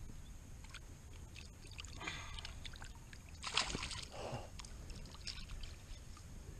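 Shallow water splashing and sloshing as a caught bass is rinsed by hand at the river's edge, with one louder splash about three and a half seconds in.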